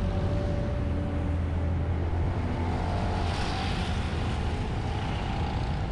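Road traffic: motor vehicle engines running with tyre noise, swelling as a vehicle passes close by about halfway through.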